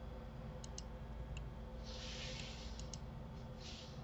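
A computer mouse clicking faintly a handful of times at irregular moments, over a steady low hum, with two soft hissing swishes about two seconds in and near the end.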